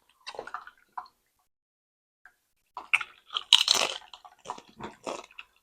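Someone crunching and chewing tortilla-chip nachos in short, irregular bursts, loudest about three and a half seconds in.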